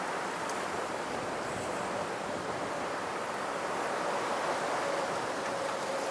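Steady rushing of wind through the woodland, with a faint steady whistle-like tone joining about two seconds in.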